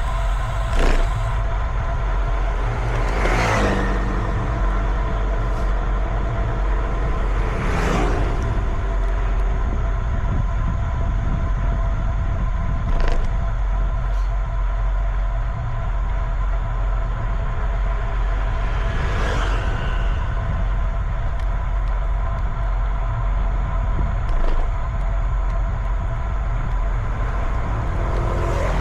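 Road traffic: a steady vehicle drone with several constant tones, and five vehicles rushing past, some falling in pitch as they go by.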